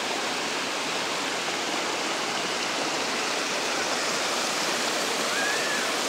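Small spring-fed stream and cascade of water rushing and splashing over rocks: a steady, even rush with no let-up.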